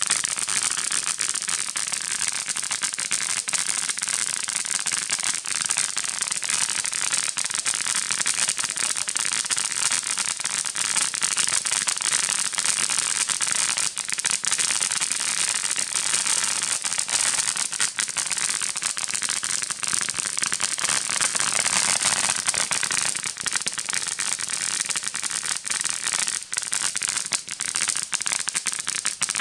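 Ground fountain firework spraying sparks: a steady hiss with dense, fast crackling.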